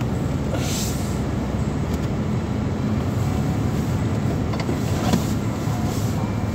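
Car interior road noise while driving: a steady low rumble of engine and tyres heard inside the cabin, with a brief hiss about a second in.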